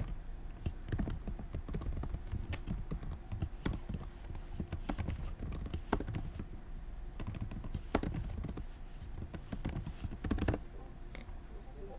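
Typing on a computer keyboard: irregular key clicks, stopping about ten and a half seconds in.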